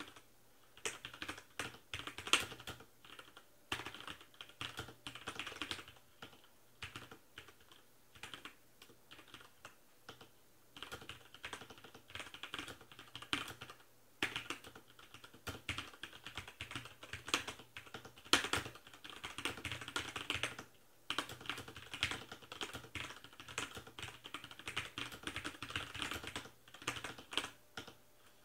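Ozone Strike mechanical keyboard being typed on at regular speed: rapid runs of key clacks broken by short pauses.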